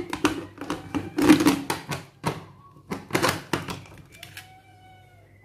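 Aluminium pressure cooker lid being set on the pot and locked shut: several bursts of metal clanks and clicks.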